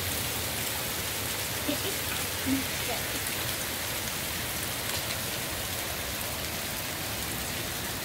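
Hail falling steadily: an even hiss of small hailstones striking the street, lawns and shrubs.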